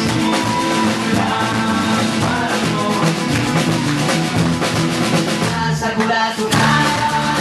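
Live band playing a song, with a drum kit and singing over guitars. About six seconds in the low end briefly drops out before the full band comes back in.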